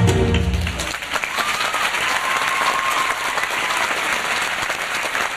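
Theatre audience applauding at the end of a musical number, a steady wash of clapping. A low note fades out in the first second, and a long whistle sounds from the crowd partway through.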